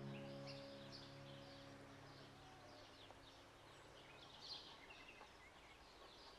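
Faint birdsong: short high chirps repeating throughout, while a held low chord of background music fades away in the first couple of seconds.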